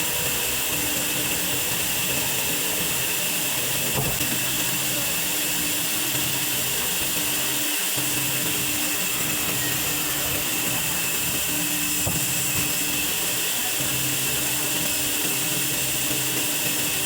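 Sawmill band saw running steadily as it cuts through a large log, a constant high-pitched whine over a noisy hiss.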